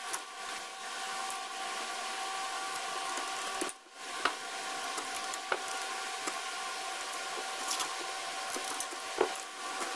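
Hand tools working the lower-pan mounting bolts of a 1975 Johnson 4 HP outboard: scattered metal clicks and clinks of wrench and socket on the bolts, over a steady hum.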